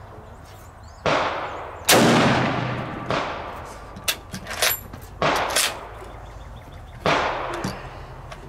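Five rifle shots on an outdoor range, each with a long echoing tail. The first two are less than a second apart, too quick for one bolt-action rifle, so more than one shooter is firing. A few short clicks come about halfway through.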